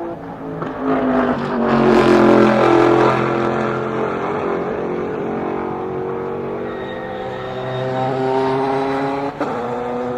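Endurance race cars going through a corner. The loudest car passes about two seconds in, its engine note falling. Engine notes climb again later as cars accelerate away, with a brief sharp break near the end.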